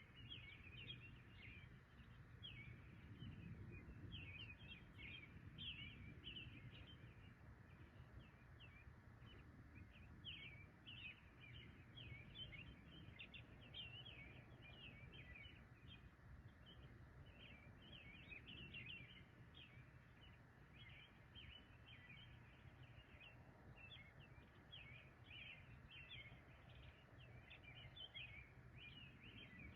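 Faint early-morning birdsong: many short, quick chirps overlapping continuously, over a steady low background rumble.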